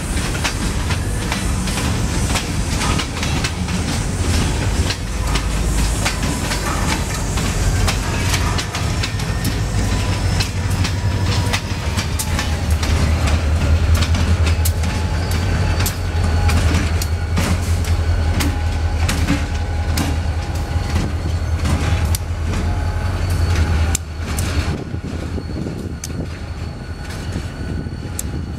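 Diesel-hauled freight train of empty flatcars rolling slowly past, with wheels clicking and clanking over the rail joints and the locomotive's engine rumbling steadily. The rumble drops off about 24 seconds in as the locomotive moves away, while the wheel clicks carry on.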